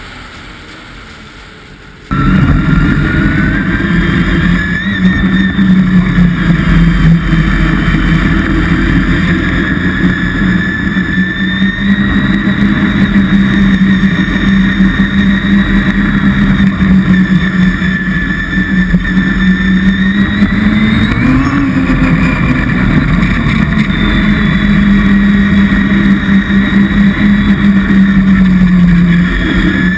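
Vehicle engine running loud at a fairly steady speed, with a dense low rumble beneath it. The sound cuts in suddenly about two seconds in, and the engine pitch rises briefly a little past the two-thirds mark.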